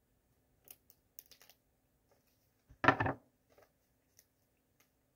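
Small clicks and scratches of hands working at a CD digipak and its plastic wrap, with one louder, short rustling knock about three seconds in.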